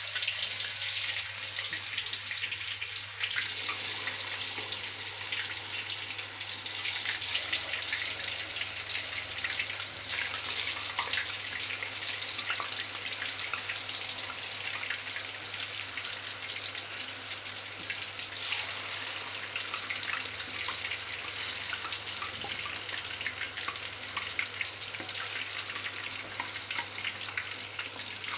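Sumedang tofu deep-frying in hot oil in a wok: a steady sizzle thick with fine crackling and popping.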